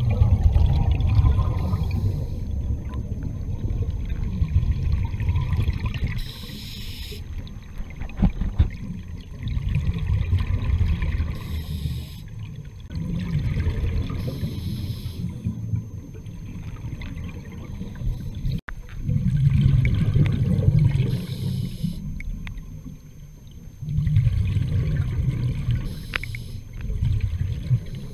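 Scuba diver breathing through a regulator, heard underwater: exhaled bubbles rumble out in bursts every few seconds, with a short high hiss between them.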